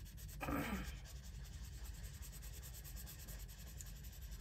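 Coloured pencil shading lightly on paper dusted with powder blender: a soft, steady scratching of quick repeated strokes. A brief louder sound about half a second in.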